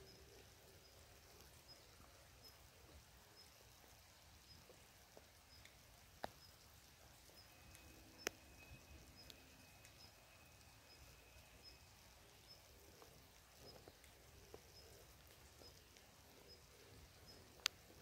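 Faint rain in a forest: a soft even hiss with scattered drips and three sharp drops landing close by, the last near the end the loudest. A faint high chirp repeats evenly through it.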